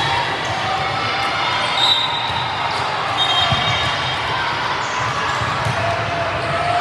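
Indoor gym game sounds: a ball being hit or bounced, with a thud about halfway through, short high squeaks, and a hubbub of voices echoing around the hall.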